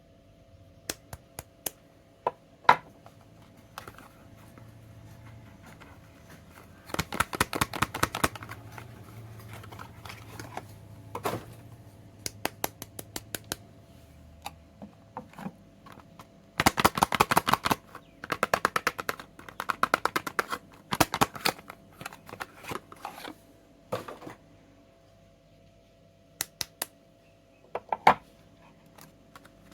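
Soap and its wrapping handled close to the microphone: quick runs of crisp clicks and crackles, a second or two at a time, with single ticks between them.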